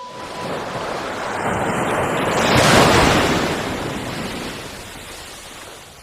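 Cartoon wind-blast sound effect: a rushing whoosh that swells to its loudest about three seconds in and then dies away. In context it is the gale of a giant sneeze blowing things away.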